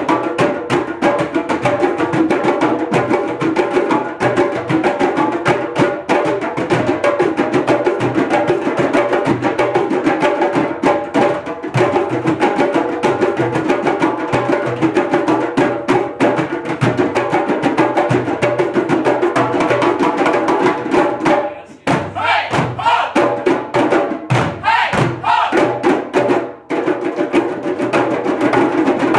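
A group of djembes played by hand together in a dense, fast rhythm. About three-quarters of the way through the playing briefly drops away and thins to sparser strokes, then the full group comes back in.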